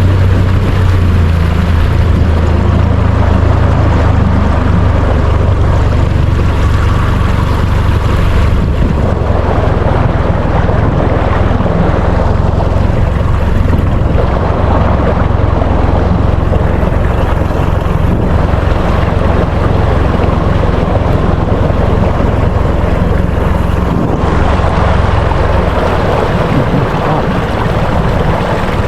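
Small boat's motor running steadily under way, with water rushing past the hull and wind on the microphone.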